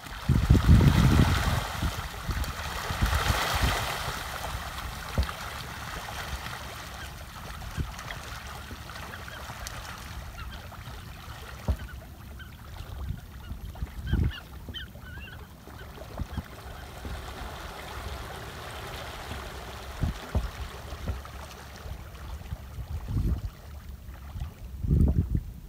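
Wind buffeting the microphone in gusts over open water, with a rushing wash of water in the first few seconds. A few faint calls come from a large flock of diving birds rafting on the water.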